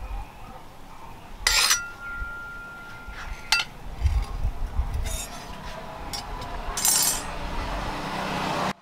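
Leaf-spring steel cleaver knocking against a thin steel rod on a stake anvil: a metallic clink with a ringing note about one and a half seconds in, a sharp click about two seconds later, then fainter knocks and handling noise.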